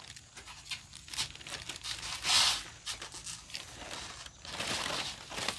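Irregular rustling and crinkling, as of something dry or papery being handled, loudest about two seconds in and again near the end.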